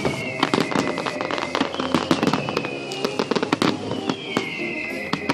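Fireworks going off in a rapid, dense string of bangs and crackling pops, with a high tone gliding downward about every two seconds.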